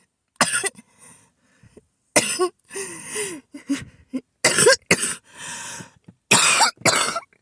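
Harsh coughing fit: a person coughs again and again in short, sharp bursts, with longer, quieter rasps in between. The person puts it down to an asthma attack.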